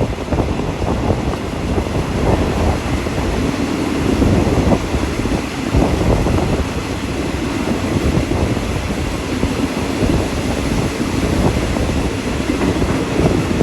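Passenger train running along the track, a steady loud rumble with frequent short knocks and clatters from the wheels on the rails.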